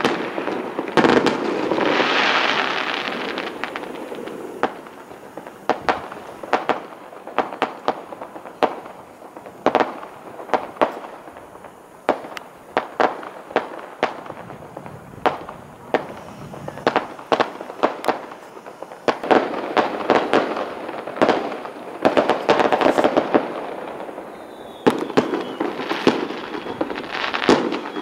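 Aerial firework shells bursting: a long run of sharp, separate bangs and pops through the middle, with denser, noisier stretches of bursts near the start and again about two-thirds of the way in.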